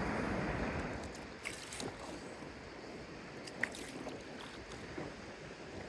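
Water sloshing around a kayak, a louder rush for about the first second and then quieter lapping with a few small drips and splashes.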